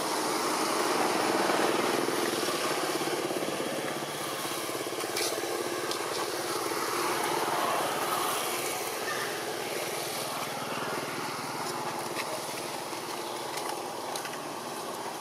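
A small engine running steadily, swelling a little about two seconds in and again around eight seconds.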